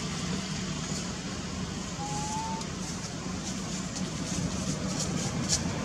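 A steady low background rumble, with one short, thin, slightly rising whistle about two seconds in.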